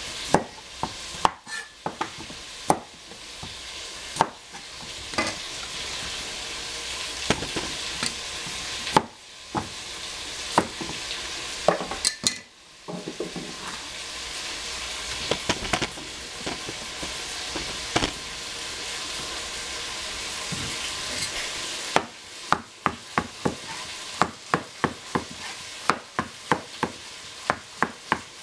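Shrimp and vegetables sizzling in a hot pan as they are stirred, the utensil knocking against the pan now and then. Near the end comes a quick run of sharp knocks, about two to three a second.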